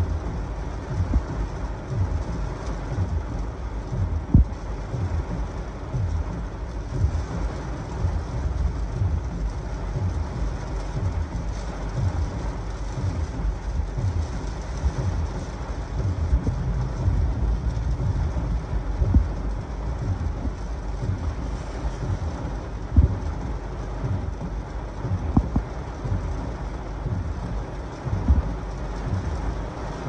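Heavy thunderstorm rain and strong gusty wind heard from inside a car: a steady low rumble with frequent short, irregular thumps as gusts buffet the car.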